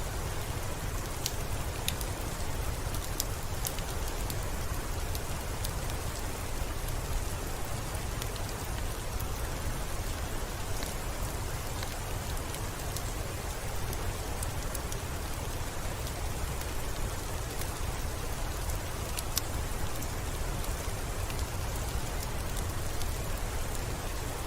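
Steady rain, with occasional sharp crackles from a wood fire scattered through it.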